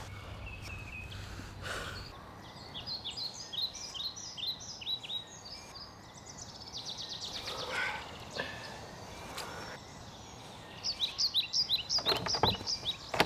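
Small birds singing outdoors in quick repeated phrases of high chirps, over a steady outdoor background. Near the end, a few sharp rattles and knocks as a wooden door's handle is tried and the door holds fast, locked.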